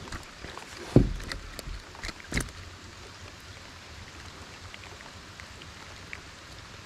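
Two knocks against a plastic kayak hull, a loud one about a second in and a lighter one about a second and a half later, over a steady hiss of rain.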